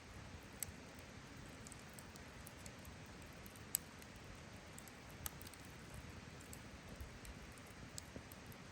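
Wood campfire burning quietly with a soft steady hiss and a few scattered sharp crackles, the loudest pop a little under four seconds in.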